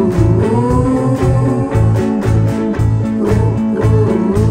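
Band music: guitar over a repeating bass line and a steady drum beat, with a lead line that bends up and down in pitch.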